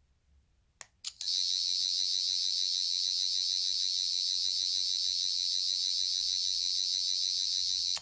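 Character Options Thirteenth Doctor sonic screwdriver toy: a button clicks twice about a second in, then its sonic sound effect plays, a loud, steady, high-pitched electronic whir with a fast flutter, which stops abruptly at the end.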